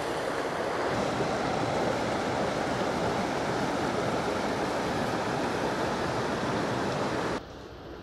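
Steady rushing of a creek's flowing water. About seven seconds in it drops abruptly to a much quieter flow.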